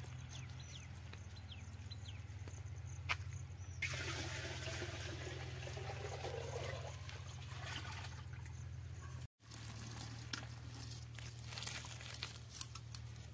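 Water poured from a steel bucket into the top pot of a clay-pot still, a splashing pour of about four seconds starting about four seconds in. After a break, thick jackfruit mash slops out of a pot onto grass.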